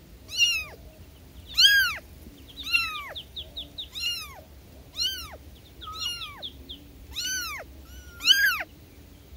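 Young kitten meowing over and over, about eight high-pitched calls roughly a second apart, each rising and then falling in pitch: a kitten calling for its mother.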